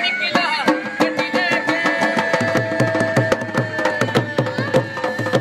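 Rajasthani folk music accompanying a puppet dance: a dholak hand drum beats a quick, steady rhythm under a long held melodic note.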